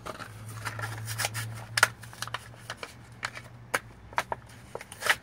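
Irregular light clicks and rustles, a dozen or more, over a faint low steady hum.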